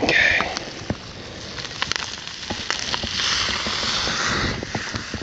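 Trout frying in butter in a cast skillet over a wood campfire: a loud sizzle in the first half-second as it goes into the butter, then steady hissing that swells again about three seconds in, with the fire's wood crackling and popping throughout.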